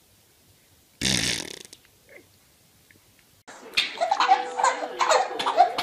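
A baby's fart: one short, loud burst about a second in. A couple of seconds later, people start laughing in quick repeated bursts.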